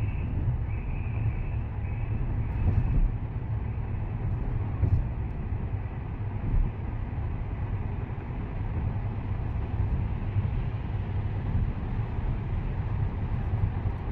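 Steady low rumble of a car driving through a road tunnel, heard from inside the cabin: tyre and engine noise.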